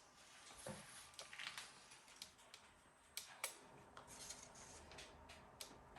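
Near silence with a few faint, sharp clicks: one about a second in, two close together a little after three seconds, and one near the end.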